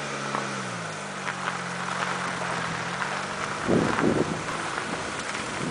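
Car engine humming, falling in pitch at first and then holding steady. About two-thirds of the way in, wind starts buffeting the microphone in gusts.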